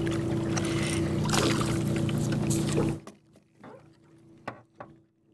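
Bow-mounted electric trolling motor running steadily with a fixed hum and a wash of hiss, then cutting off suddenly about three seconds in. A few faint clicks and knocks follow.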